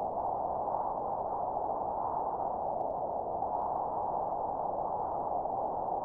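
A steady, muffled rush of wind noise with the highs cut away, holding an even level throughout.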